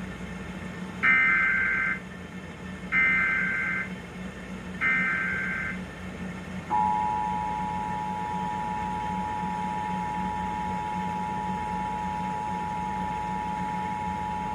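Emergency Alert System tones. First come three short warbling data bursts of the SAME header, about a second each, and these are the loudest. Then the steady two-tone EAS attention signal starts about seven seconds in and holds to the end. A steady low hum runs underneath.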